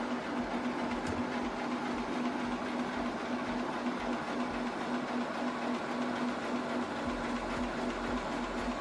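HP DeskJet 3700-series printer's scanner running: the motor drawing the document through the feeder makes a steady mechanical hum, with a lower hum joining near the end.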